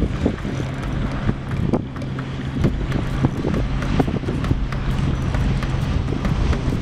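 Wind buffeting the microphone, with a steady low hum underneath and scattered light clicks.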